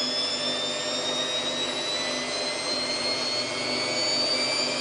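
Samsung WF8804RPA washing machine's drum spinning up in a service-mode spin test, the motor's high whine slowly rising in pitch as the drum speeds up from 400 rpm toward 800 rpm.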